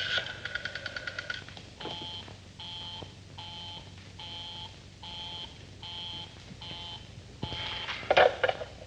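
A telephone bell rings with a rapid trill for about a second and a half. Then a telephone busy signal sounds as about eight evenly spaced beeps, a little over one a second: the line called is engaged. A brief louder sound comes near the end.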